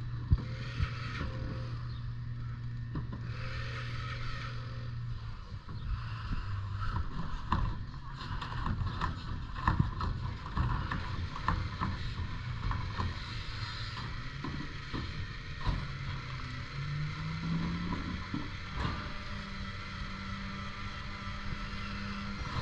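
Rear-loading garbage truck at the curb: its diesel engine idles while trash carts are tipped into the hopper with a run of clanks and knocks. About 17 seconds in the engine revs up and holds at the higher speed, as it does to drive the hydraulic packer blade compacting the load.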